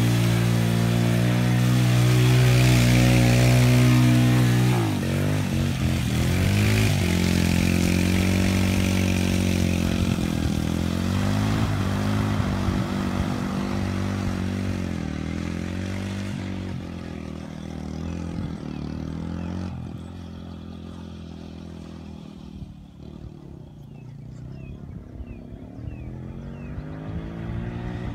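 Small youth ATV engine revving up and easing off while it drifts through mud. It fades as the quad rides away through the middle and grows louder again near the end as it comes back.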